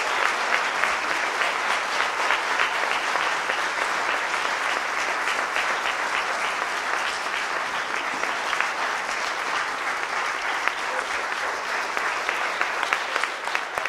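Audience applauding: a large crowd clapping steadily and densely.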